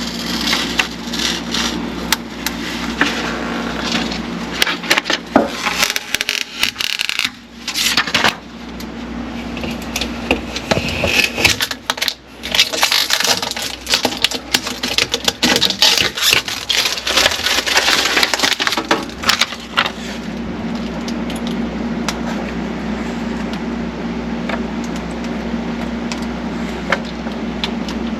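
Plastic refrigerator drawers and styrofoam packing being handled: irregular rubbing and scraping with many sharp clicks and clatters. About twenty seconds in the handling stops and a steady low hum is left.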